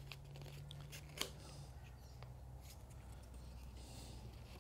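Faint clicks and taps of thin wooden sticking strips being handled and pressed into place inside a small timber box, with one sharper click about a second in, over a low steady hum.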